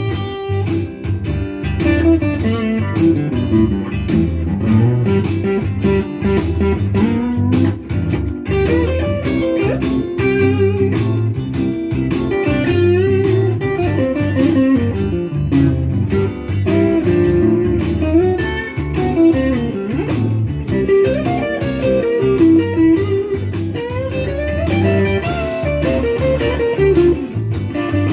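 Electric guitar playing an easy-going blues shuffle, with bent lead notes over a steady rhythm.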